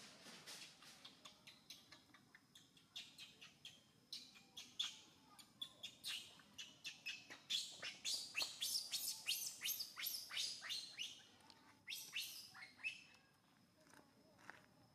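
Baby macaque crying in rapid, high-pitched squeals that sweep downward in pitch, several a second, growing louder and then tapering off near the end: distress cries of an infant wanting to nurse while its mother handles it.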